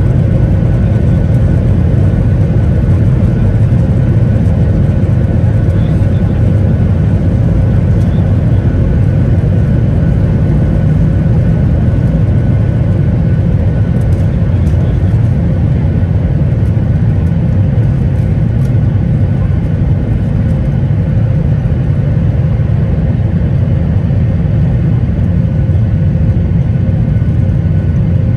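Boeing 737-800's CFM56-7B engines at takeoff thrust, heard inside the cabin over the wing: a loud, steady rumble with a faint steady whine on top, running on through liftoff and the initial climb.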